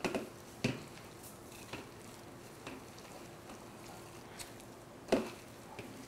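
Hands squeezing and kneading grated boiled potato with spices in a metal plate: soft, irregular squishes and light taps, the loudest about five seconds in.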